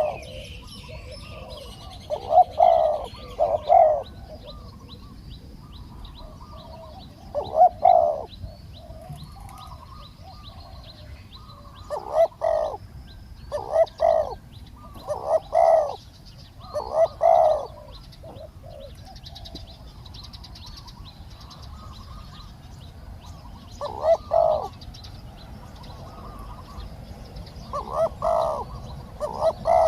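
Spotted doves cooing: short phrases of two to four coos that recur every few seconds, several in a row around the middle. Fainter high chirping of small birds runs behind.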